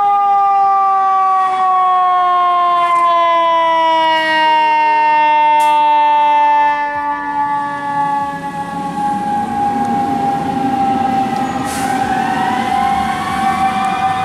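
Fire engine siren sounding, its pitch falling slowly and steadily as it winds down. About twelve seconds in, a second siren wail starts rising over it, with the rumble of the truck in the background.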